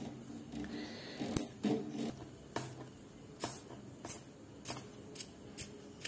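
Soldering iron being taken apart by hand: a string of small metal clicks and short ringing clinks as the iron's tip and metal barrel are unscrewed, pulled free and set down, the sharpest clink about four seconds in.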